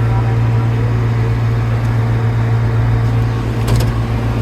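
Farm tractor engine running steadily, a low even drone, as it drives through a hayfield cutting hay. There is a brief click or rattle about three and a half seconds in.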